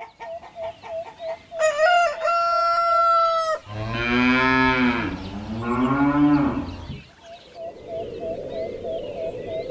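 Farmyard animals: a chicken clucking in quick short calls, a rooster crowing once for about two seconds, then a cow mooing twice in long low calls, with the clucking returning near the end.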